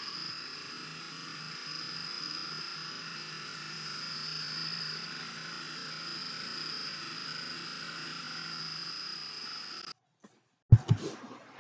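Steady, faint night ambience from the thermal camera recording's own soundtrack: one constant high-pitched tone over a low wash of hiss. It cuts off abruptly about ten seconds in, and a few sharp clicks follow near the end.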